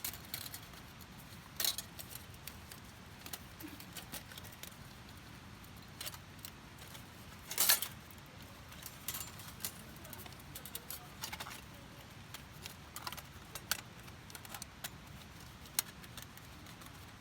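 Scattered light clicks and rattles of small hard objects being handled, with a louder, longer clatter about eight seconds in.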